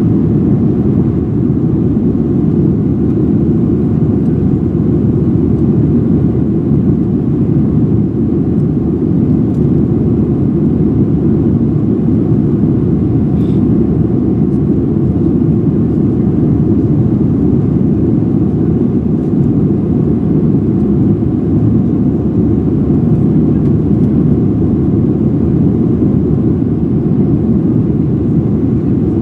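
Steady, loud low roar of a Boeing 737-700's jet engines and airflow, heard inside the passenger cabin.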